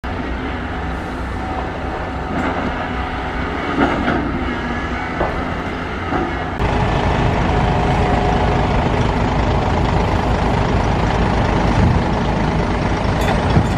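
Diesel engine of a large Volvo crawler excavator running under load as it digs, with a few scrapes and knocks from the bucket against dirt and rock. About six and a half seconds in, the sound cuts to a louder, closer engine as the excavator loads a dump truck.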